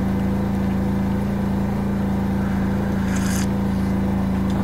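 A steady low mechanical hum, even in pitch and level throughout. About three seconds in there is a short hiss, a sip from an enamel mug.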